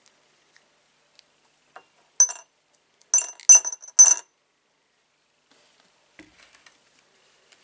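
Small rusty steel thumbscrews and square nuts dropped into a glass jar, making four or so sharp, ringing clinks against the glass and each other over about two seconds, starting about two seconds in.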